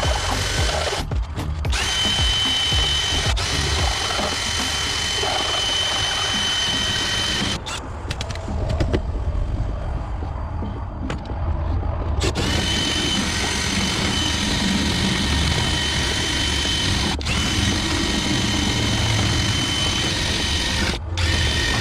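Power drill turning a hole saw as it cuts through a door, a steady run with a whine. It eases off briefly about a second in and runs lighter for several seconds midway.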